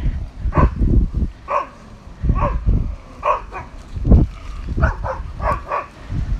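Dogs barking, a run of short barks roughly one or two a second, as the dogs squabble among themselves. A low rumbling noise sits beneath the barks.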